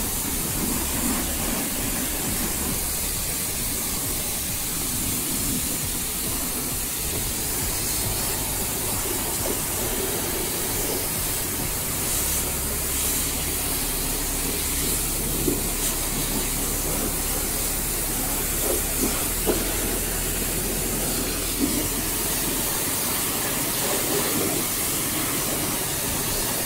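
Pressure-washer spray hissing steadily as it blasts mud off an ATV, with a few short knocks after the middle.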